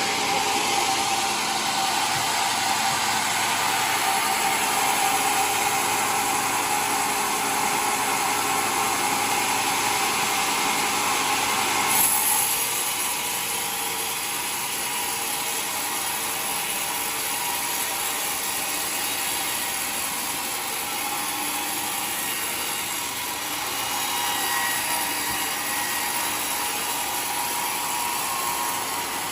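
Homemade sawmill sawing a waru log into planks: a steady, dense cutting noise from the blade going through the wood. About twelve seconds in there is a brief louder moment and the sound changes character, then the cutting goes on steadily.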